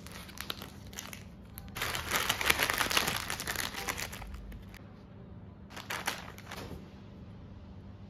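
Crinkling, rustling noise of something being handled, in a dense two-second stretch about two seconds in and a shorter burst about six seconds in, with a few light clicks before.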